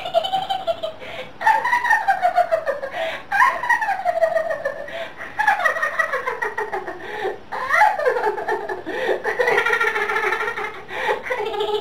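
A high, squeaky voice making wordless, sing-song sounds in phrases of a second or two that mostly slide down in pitch.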